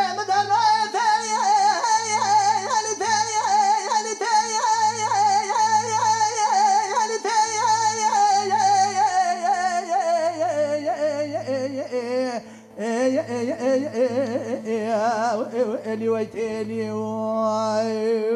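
Male Kurdish dengbêj singer chanting long, heavily ornamented held notes with a constant quiver, the line sinking lower toward the middle, with a short break for breath about two thirds through. A low steady drone runs underneath.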